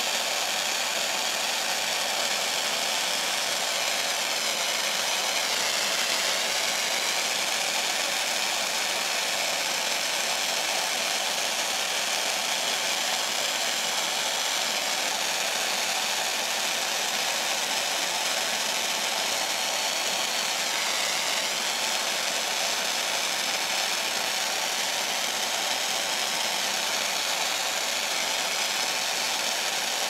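Steady hiss of a handheld gas torch's blue flame, heating a copper ring terminal on heavy-gauge battery cable to flow solder into the joint.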